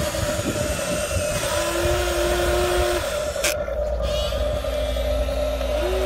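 Electric motors and gearing of a Huina 1593 RC excavator whining as it tips its bucket and swings the arm. A steady higher whine runs under lower whines that ramp up, hold and drop off as each movement starts and stops. There is one sharp click about three and a half seconds in.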